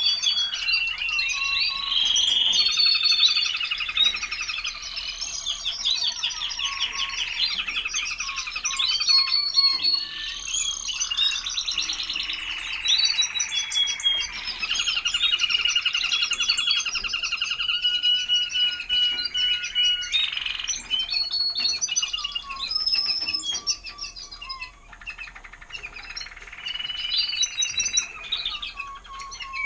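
Timbrado español canaries singing: a continuous, overlapping song of rapid trills made of quickly repeated notes, mixed with held whistled tones.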